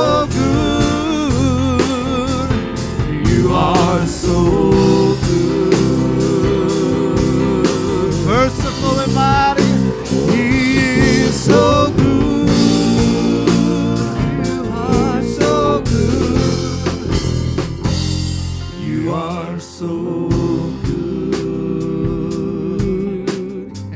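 Live church worship band playing a praise song: drum kit and guitar under a singer's wordless, wavering vocal runs. The drums and bass drop out briefly about nineteen seconds in, then come back.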